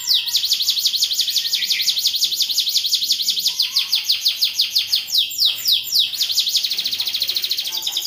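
Domestic canary singing in full, unbroken song: rapid trills of high, repeated downward-sweeping notes, some passages faster and denser than others.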